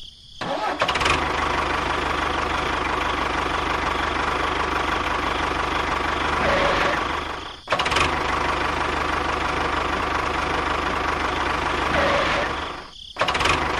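Tractor engine running steadily. It starts just after the beginning and cuts out briefly about eight seconds in and again near the end.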